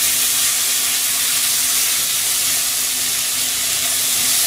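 Sausages and vegetables sizzling steadily in a hot frying pan, an even hiss, with a faint steady hum underneath.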